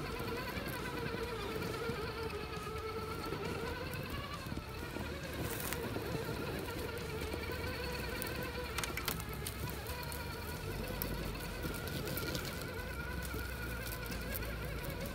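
Electric motor and geared drivetrain of an Axial SCX6 1/6-scale RC crawler whining steadily as it crawls, the pitch wavering slightly with the throttle. A few short sharp clicks come through in the middle.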